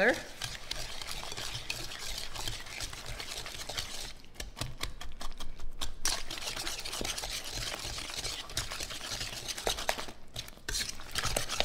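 Danish dough whisk stirring wet cake batter of eggs, sugar, melted butter and shredded zucchini in a glass bowl: continuous wet stirring and scraping, with two brief pauses.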